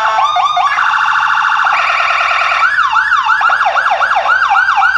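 Toy police car's electronic siren sounding loudly, first a fast warble, then about halfway through switching to rapid repeating yelps of about three a second.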